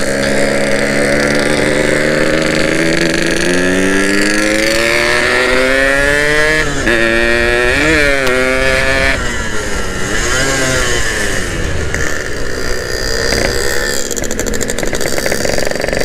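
Yamaha RX-King's two-stroke single-cylinder engine, heard from the saddle while riding. Its pitch climbs steadily as the bike accelerates from about three seconds in, it blips up twice around the middle, then it drops back to a lower, steadier run.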